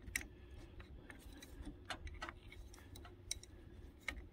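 Scattered faint metal clicks and taps of two crescent wrenches being set on the drain tube's fitting and cap of a riding mower's oil drain hose.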